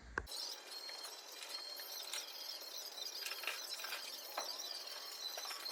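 Scattered light clicks, taps and rattles of bolts and hand tools being worked while the rear bumper bar is bolted on, over a faint steady high hiss.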